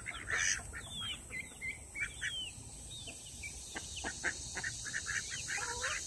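Backyard flock of ducks and chickens calling: a busy run of short, high chirping calls, with one lower sliding call near the end.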